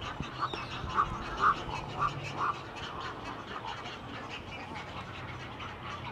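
A bird giving a series of short, nasal, quack-like calls, about five of them half a second apart, that stop about halfway through.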